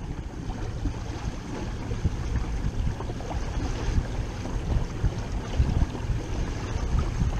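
Water rushing and splashing along the hull of a WindRider 16 trimaran sailing at about 6 mph, with gusty wind buffeting the microphone.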